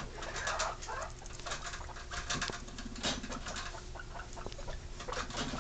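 Skinny pigs (hairless guinea pigs) making soft, low purring sounds in two short bursts, about two seconds in and near the end. Faint clicks and rustles run under them throughout.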